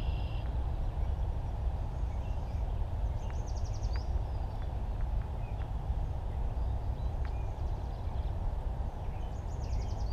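Steady low outdoor rumble. Over it, a songbird sings a short rapid trill twice, a few seconds apart.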